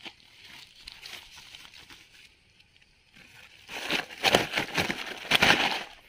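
A plastic salt sack rustling and crinkling as it is handled and held open, in a loud run of crackles over the last two seconds, after a quieter stretch with only faint rustles.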